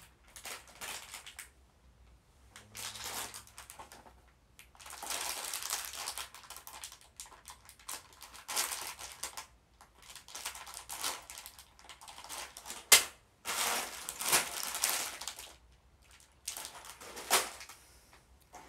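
Irregular rustling and crinkling of paper and packaging as small parts from an assembly kit are handled and searched through, with a sharp click about 13 seconds in.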